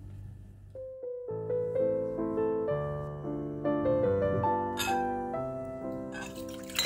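Gentle solo piano music starts about a second in. Near the end, milk and water splash as they are poured into a glass mixing bowl.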